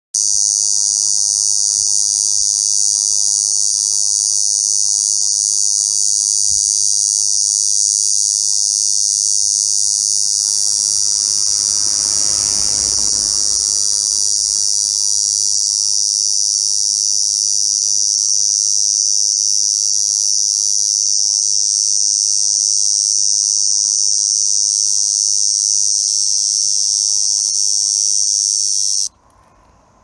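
A Ko-ezo-zemi cicada (Lyristes bihamatus) singing: one loud, unbroken, high-pitched buzz that holds steady and cuts off suddenly near the end.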